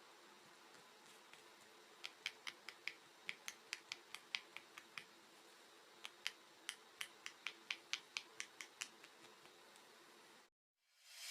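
Silicone pop-it fidget toy bubbles pressed one after another, giving rapid small sharp pops in two runs of about a dozen each, the second starting about six seconds in.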